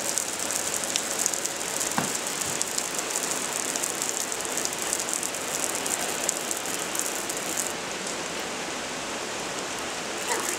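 Steady rain falling: a dense, even patter of drops.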